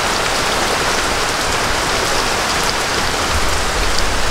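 Steady rain falling: an even, unbroken hiss of drops with a few sharper drips.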